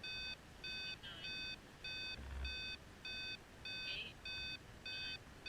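Electronic alarm beeping steadily, a bit under two short, shrill beeps a second, each beep a buzzy tone of several pitches.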